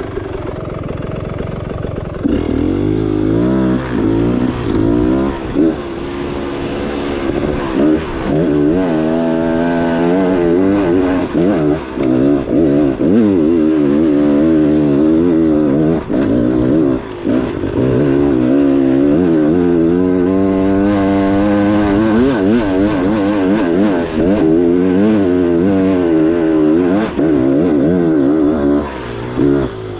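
Enduro dirt bike engine being ridden hard, revving up and down over and over as the throttle is worked, with its pitch climbing and falling every second or two. There are a few brief drops in level, twice around the middle and once near the end.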